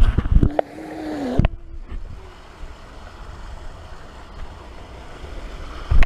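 Riding a water slide: the rumble and rush of water as the body slides down the flume, a held note for about a second, then a sharp splash-down about a second and a half in. After it comes a much quieter, muffled wash of water, and a loud knock right at the end.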